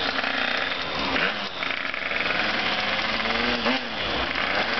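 Small motorbike engine revving up and dropping back several times.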